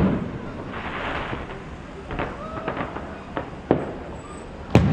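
Aerial fireworks shells bursting: a loud bang at the start and another near the end, with a third bang and smaller pops and crackles between them. Faint crowd voices underneath.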